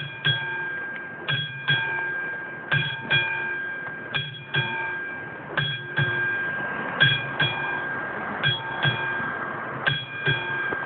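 Railway level-crossing warning bell ringing in pairs of strokes, a pair about every one and a half seconds, each stroke ringing on. It signals that a train is approaching the crossing.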